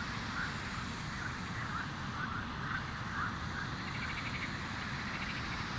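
Wind buffeting the microphone outdoors as a steady low rumble, with faint short animal calls repeating every fraction of a second and a brief rapid trill about four seconds in.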